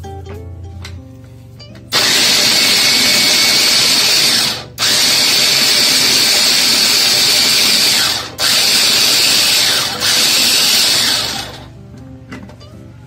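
Prestige electric vegetable chopper's motor whirring as its blade chops vegetables. It starts about two seconds in, runs in four pulses with brief breaks between them, and stops a little before the end.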